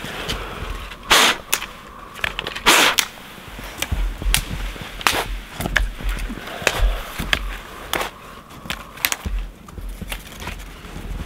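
Dry dead branches being snapped by hand for firewood: a series of sharp cracks, the loudest about one and three seconds in, followed by lighter snaps and clicks of twigs.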